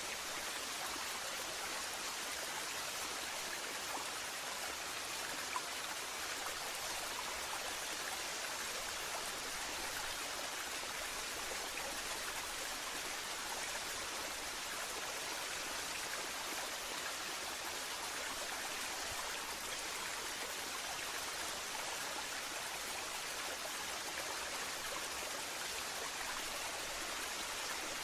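Waterfall: water falling and rushing in a steady, unbroken hiss with no change in level.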